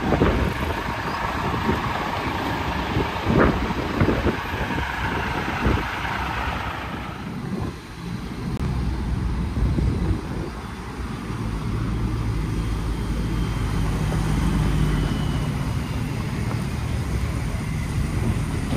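A heavy vehicle engine running, with a loud rushing noise and several sharp knocks in the first six seconds or so. About seven seconds in the sound changes to a steady low engine drone.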